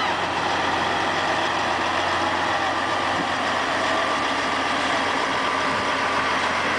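Semi truck's diesel engine idling as it slowly tows a flatbed parade float past, a steady low rumble.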